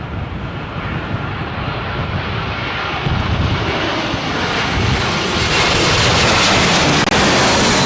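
Jet airliner on approach to land, its engine roar growing steadily louder as it comes closer and is loudest near the end.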